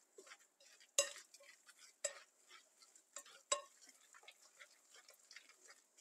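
Wire whisk stirring a thick vegetable batter in a glass bowl: faint irregular clicks and scrapes of the whisk against the glass, the sharpest about a second in and again about three and a half seconds in.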